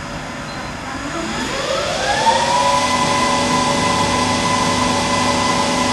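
ACER E-Lathe 1440V spindle drive (a 3 hp motor on a vector frequency drive) speeding up after a programmed change from about 380 to 1500 rpm. Its whine rises in pitch for about two seconds from about a second in, then holds steady once the spindle reaches the set speed.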